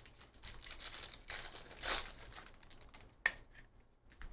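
Foil wrapper of a Panini Donruss basketball hobby pack crinkling and tearing as it is ripped open by hand, loudest about two seconds in. A single sharp click comes a little after three seconds.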